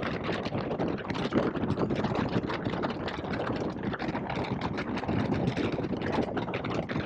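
2021 Indian Scout Bobber's V-twin engine running steadily while the bike rides along, mixed with wind noise, heard through a helmet communicator microphone.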